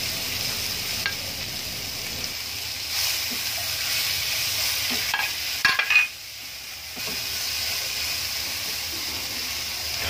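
Sliced bell peppers and carrots sizzling in hot oil in a frying pan while being stirred and tossed with a spatula. A few sharp scrapes and clicks of the spatula against the pan stand out, the loudest a little before the middle, and the sizzle drops briefly quieter just after them.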